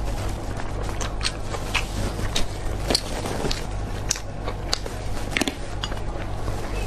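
Close-miked food handling: plastic-gloved hands squeezing a large sausage, with scattered sharp clicks and snips as kitchen scissors cut through it. A steady low hum runs underneath.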